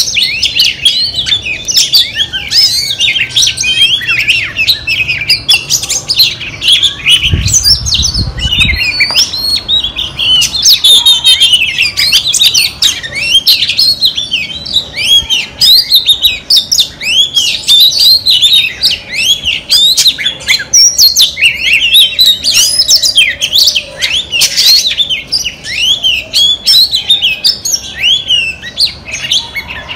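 Female oriental magpie-robin singing a continuous, rapid run of varied chirps and whistles.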